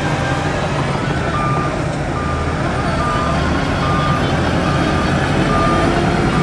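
Reversing alarm on a heavy diesel machine beeping about once a second at a single pitch, starting about a second in, over the steady low drone of its diesel engine as it backs up.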